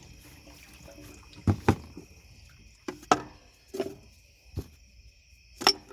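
Chlorine tablets clunking one by one into a pool chlorinator as it is filled, about six sharp knocks at uneven intervals. Crickets chirp steadily underneath.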